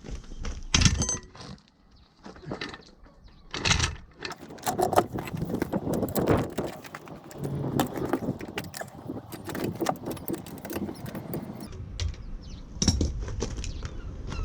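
Metal tools clinking and rattling as they are handled, a busy run of short clicks and knocks with a few louder knocks.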